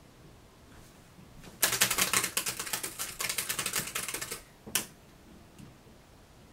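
Fast typing on a laptop keyboard: a quick flurry of keystrokes lasting about three seconds, then one last single key press.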